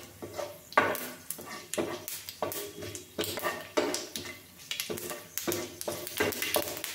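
Plastic slotted spatula scraping and stirring around a non-stick frying pan in quick, irregular strokes, two or three a second, over a light sizzle of whole spices (bay leaves, dried red chillies, panch phoron) frying in mustard oil.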